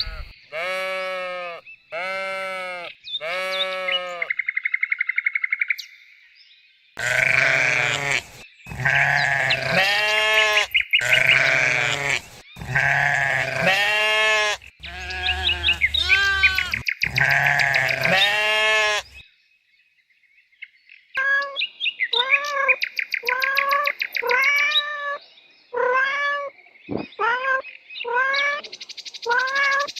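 Bleating, a long series of high, wavering calls: three in the first few seconds, a dense run of loud overlapping calls through the middle, then shorter calls about one a second after a brief pause.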